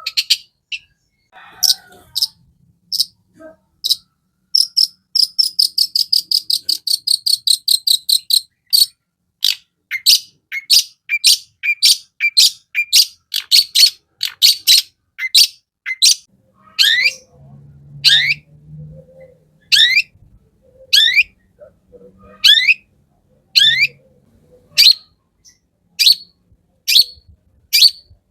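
Long-tailed shrike (cendet) singing loud, sharp, high chirps. About five seconds in comes a fast run of repeated notes. After that it gives single rising notes at a fairly even pace, a little under one a second.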